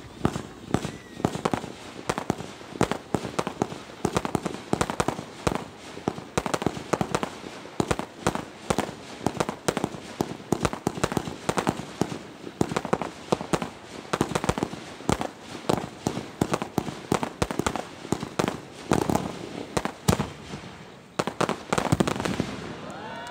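Aerial fireworks barrage: shells launching and bursting in quick succession, with several sharp bangs and crackling reports every second.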